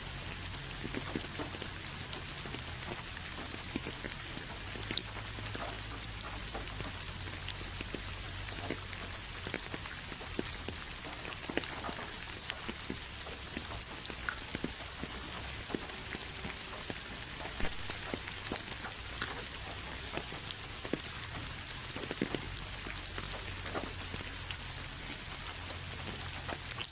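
Steady rain falling, an even hiss with many scattered individual drop impacts and a low steady rumble underneath.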